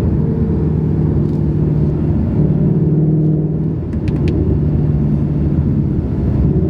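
A 2019 Ford Mustang GT's 5.0 Coyote V8 cruising in fourth gear at part throttle, heard from inside the cabin as a steady, low exhaust drone. The drone dips briefly just before four seconds in.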